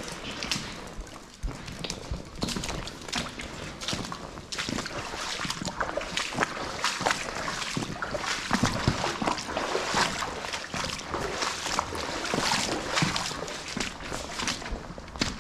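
Footsteps in waders sloshing through shallow water and silt, a continuous run of irregular splashes.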